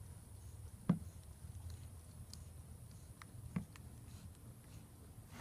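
Kobalt 3/8-inch gearless ratchet being handled, making no clicking at all. Only two soft knocks, about a second in and past the middle, and a few faint ticks are heard.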